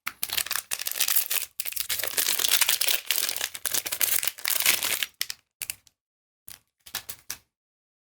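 Magic: The Gathering cards and booster pack wrapping being handled, a dense crinkling rustle for about five seconds, then a few short light clicks.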